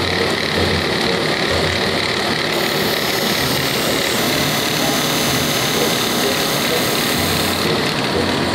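Bench grinding wheel running steadily, with a high hiss from about two and a half seconds in to near the end as a small metal nose-hair-clipper part is pressed against it.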